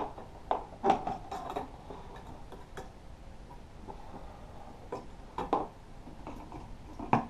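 Scattered light clicks and taps, about eight over several seconds, from handling a fishing rod, its line and the bent-wire trigger on a homemade wooden automatic fisherman tip-up while rigging it.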